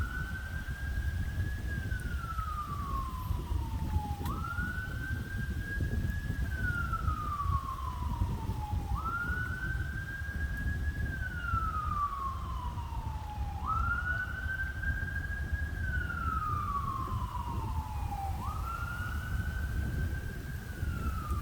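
Emergency-vehicle siren wailing: the tone climbs quickly, holds high, then slides slowly down, repeating about every four and a half seconds, five times over. Under it, a steady low rumble of wind on the microphone.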